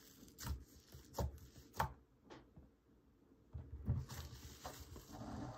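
Fingers poking and kneading a thick, rubbery green slime: four separate sharp pops in the first couple of seconds, then a denser run of squishing from about three and a half seconds in.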